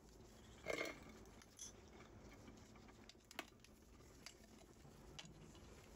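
Faint, scattered clicks and light taps of clear plastic joint-shell parts being handled, the loudest just under a second in.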